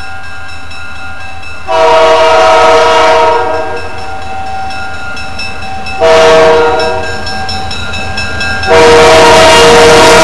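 A diesel locomotive's multi-chime air horn blowing the grade-crossing signal as the train approaches: a long blast, a short one, then a long one that is still sounding at the end. Under it, the crossing bell rings steadily.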